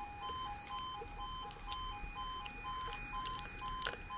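Railway level crossing alarm sounding as the barrier lowers: an electronic two-tone warning that alternates rapidly and evenly between two pitches, signalling an approaching train.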